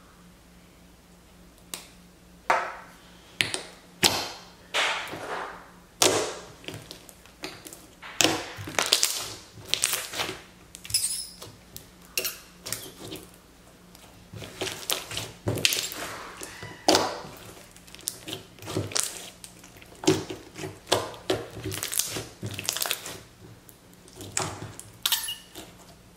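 Clear purple slime packed with melamine-sponge cubes being squeezed and kneaded by hand: irregular wet squelches and sticky pops, often several a second in bunches, starting about two seconds in.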